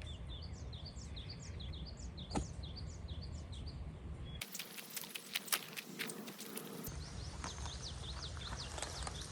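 Small birds chirping over and over, a quick falling note several times a second, with wind rumbling on the microphone. For a couple of seconds in the middle the rumble drops away and there are a few sharp clicks and taps.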